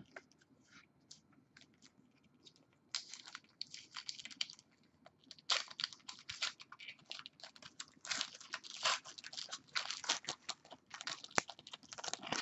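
Plastic wrapper of a trading card pack crinkling and tearing as the pack is ripped open, in irregular crackly bursts starting about three seconds in.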